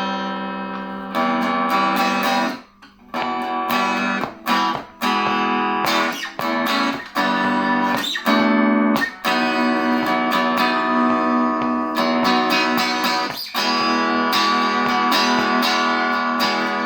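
1985 Made-in-Japan Fender Performer electric guitar, switched to single-coil on its neck pickup, played through a Peavey Valve King Royal 8 valve amp with no effects. Chords are strummed and left to ring, with a few short breaks.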